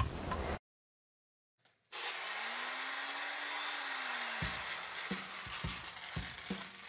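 A mechanical mantel clock ticks briefly, then cuts off to a second of silence. A whooshing intro sound effect follows, with a high whistle that rises and then falls, and then a regular beat of low thumps, about two a second, as intro music starts.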